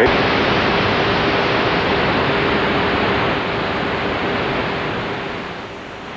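Loud, steady rushing noise with a faint hum under it, setting in suddenly and fading toward the end.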